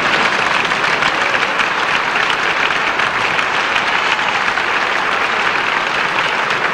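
Studio audience applauding: a sustained, steady wash of many hands clapping.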